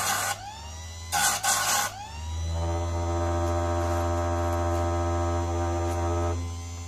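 Einhell electric saw-chain sharpener grinding a chain's cutter teeth: the wheel rasps against a tooth right at the start and again about a second in, and the motor's pitch rises back up as each cut ends. Then the motor runs unloaded with a steady whine for several seconds.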